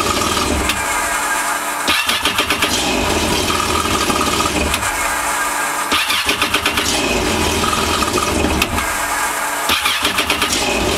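Yamaha FX SHO jet ski's 1.8-litre supercharged four-cylinder engine being cranked by its electric starter, catching almost at once, running a couple of seconds and then shut off. The cycle repeats three times, about every four seconds, as repeated quick starts on a 12 V lithium starter battery.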